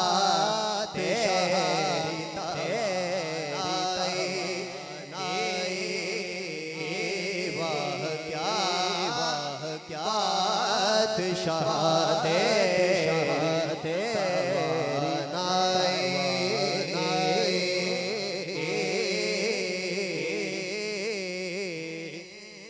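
A man singing a naat, an Urdu devotional poem in praise of the Prophet, in a melismatic chanting style through a microphone and sound system. The phrases are long, with notes held and bent. The singing fades near the end.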